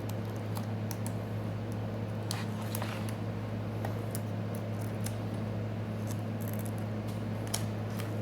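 Steady low electrical hum, with scattered faint light clicks and scrapes of a tool prying a tablet's glass free of its adhesive.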